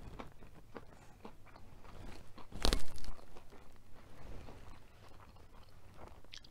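Close-miked chewing and crunching of a crisp, thin tortilla-crust pizza, with small crackles throughout and one loud crunch about two and a half seconds in.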